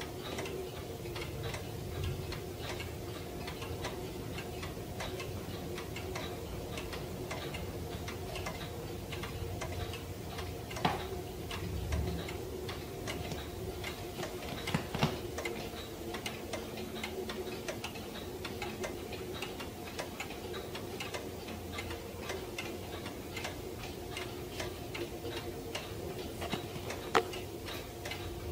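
Pendulum wall clock ticking steadily, with a few louder single knocks along the way.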